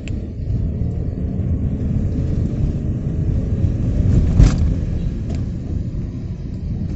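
Low, steady rumble of a car's engine and tyres heard from inside the cabin while it drives, with a single sharp knock about four and a half seconds in.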